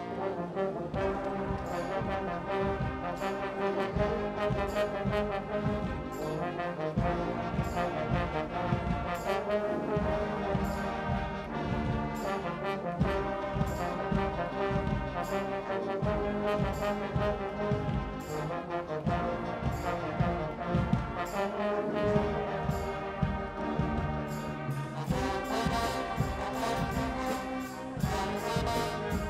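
Guggenmusik band playing live: trombones, trumpets and sousaphones carry the tune over a steady drum beat from a drum kit.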